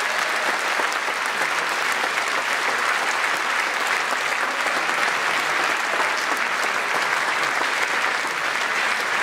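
Audience applauding, a steady mass of clapping at an even level.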